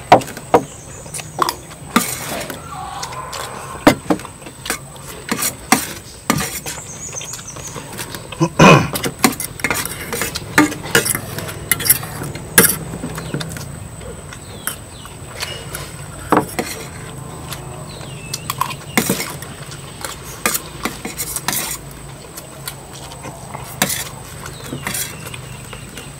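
Utensil clinking and scraping against a dish of fried rice during eating, with irregular sharp clinks about once a second, some much louder than others.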